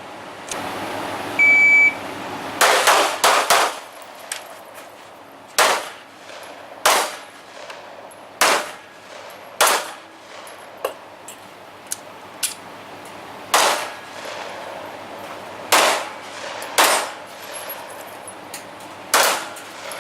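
A short electronic beep, typical of a shot timer's start signal, then gunshots at steel targets with metallic clangs: a quick string of about four shots, followed by slower single shots every second or two.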